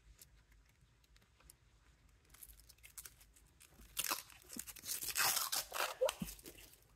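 Blue plastic protective film being peeled off a stainless-steel nail-stamping plate: a crackling, tearing noise. It starts faintly about two seconds in, is loudest over the next few seconds, then stops.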